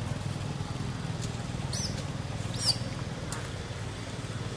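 Two short high-pitched animal calls about a second apart, the second louder, over a steady low hum.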